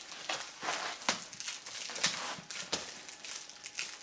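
Plastic stretch wrap around a cardboard box being cut open with a blade and scissors: irregular crinkling and rustling with sharp cracks.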